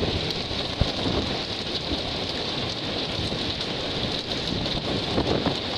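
Heavy tropical-storm rain pouring steadily in strong wind, with one sharp knock just under a second in.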